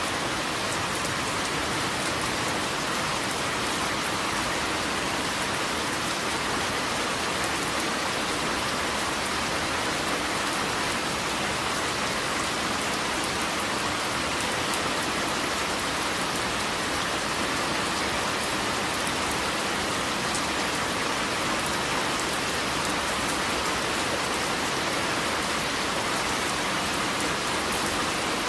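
Steady rain falling on a surface, an even hiss with fine drop patter and no change in strength.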